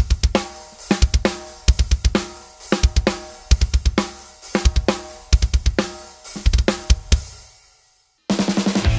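Drum kit playing a metal groove built on fast double bass drum strokes from two low-tuned 22-inch Pearl Decade Maple bass drums with clear heads, plastic beaters and inside muffling, over snare and cymbals. The kicks come in quick runs of several strokes, short and punchy with a clear attack and no sustain. The playing stops abruptly about a second before the end, and music starts just after.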